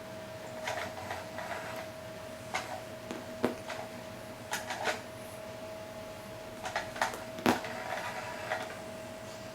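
Small electric motor of a battery-operated spinning cat toy humming steadily, with irregular light clicks and knocks over it and a sharper knock about seven and a half seconds in.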